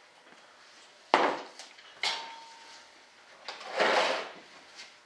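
Cans and cups being handled and set down on a wooden workbench: a sharp knock about a second in, a second knock with a brief metallic ring, then a longer scraping rustle near the end.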